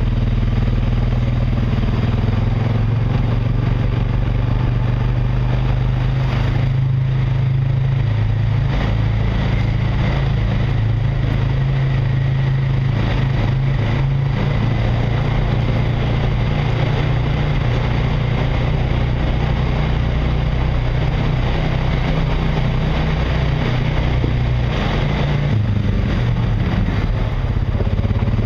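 Honda Rancher 420 ATV engine running steadily under way, heard on board, with occasional clatter from the machine over rough ground. The engine note shifts slightly late on.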